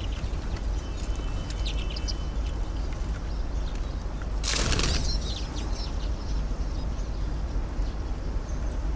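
Strong wind buffeting the microphone in a steady low rumble, with short high chirps of small feeder birds such as redpolls, siskins and tits. About halfway through there is a brief rush of wing flapping as a bird takes off or lands.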